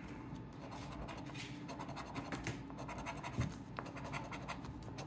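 A coin scratching the coating off a Cash Explosion 10X scratch-off lottery ticket in quick, repeated short strokes.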